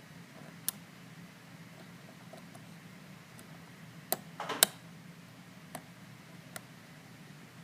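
Lock pick working the pins of a plastic-bodied Master Lock lockout-tagout padlock under light tension: sparse small metallic clicks, with a short burst of rapid clicking and rattling about four and a half seconds in.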